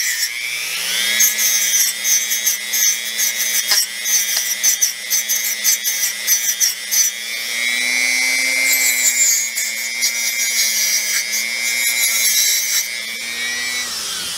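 Small handheld rotary tool with a brush wheel spinning up about half a second in and running steadily, its bristles scratching against the heavily oxidized pins of an octal EL34 tube to scrub them bright. The motor's pitch wavers a little as the brush touches the pins, and it stops just before the end.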